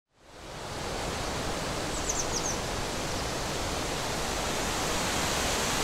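Steady outdoor ambient rushing noise that fades in at the start. About two seconds in, a bird gives a quick run of high, falling chirps.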